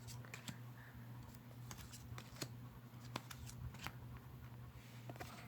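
Faint, scattered light clicks and taps of glossy tarot cards being handled and laid down, with a low steady hum underneath.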